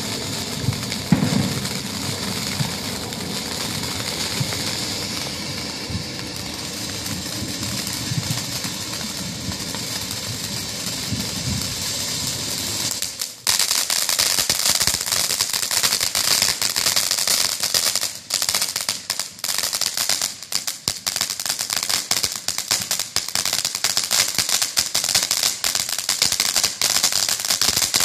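TNT Magnetic Heat fountain firework burning: a steady hiss of spraying sparks, which about halfway through changes suddenly to loud, dense, rapid crackling.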